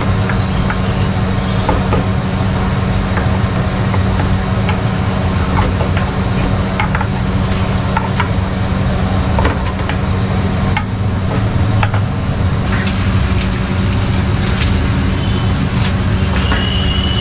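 Kachoris and samosas deep-frying in iron kadais: hot oil sizzling over a steady low hum, with scattered light knocks of the rolling pin and utensils.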